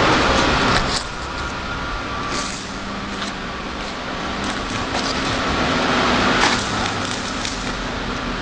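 Hydraulic tyre baler running: a steady machine hum with scattered clicks and knocks, dropping in loudness about a second in.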